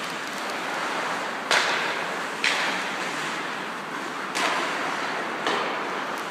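Four sharp knocks or cracks, roughly a second or two apart, over a steady hiss of background noise.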